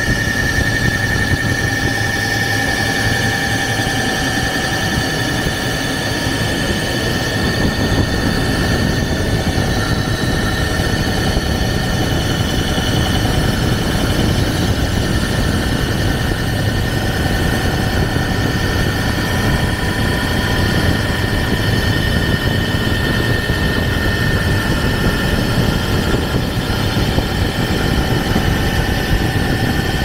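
Wheel-cutting lathe running while it machines a wheel: a steady high whine, strongest at one pitch with fainter tones above it, over a dense mechanical noise, unchanging throughout.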